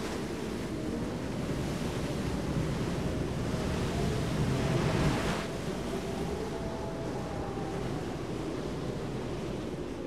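Wind and sea surf: a steady rushing noise that grows louder and then drops abruptly about five seconds in.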